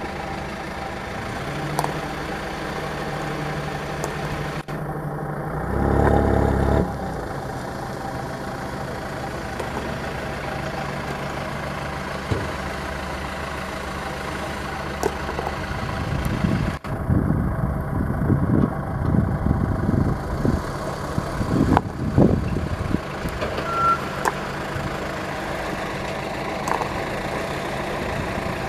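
Mitsubishi Colt Diesel dump truck's diesel engine running under load, with a loud rev about five seconds in and a run of uneven revving surges about two-thirds of the way through.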